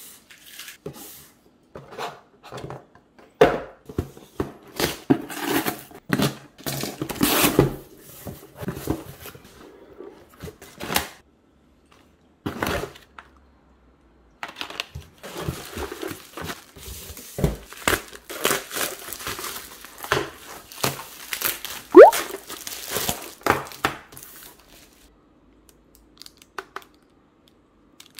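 Unpacking noises: a cardboard box and plastic and paper packaging being handled, crinkling and tearing in irregular bursts with short pauses. Near the end of the second half there is one short rising squeak, the loudest moment.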